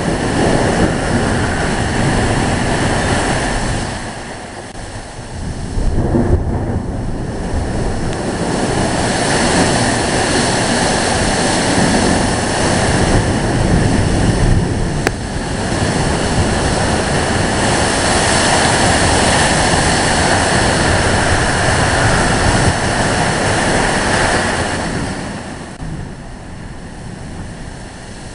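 Hurricane wind blowing hard across the microphone in gusts, easing briefly about four seconds in and dying down near the end.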